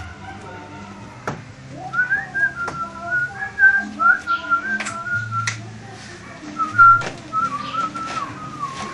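A man whistling a melody along with a song playing on a stereo; the whistled tune starts about two seconds in. A few sharp clicks sound through it.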